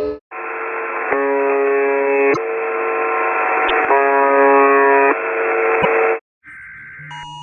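Emergency alert broadcast tone with a steady static hiss. A chord of electronic tones alternates between two pitch patterns about every second and a half, then cuts off suddenly, and a different, quieter alert tone starts near the end.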